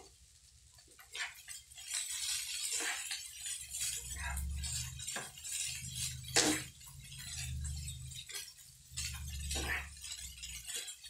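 Wooden spatula stirring and scraping fried rice around a frying pan, with repeated small clicks and taps against the pan and one louder knock about six seconds in.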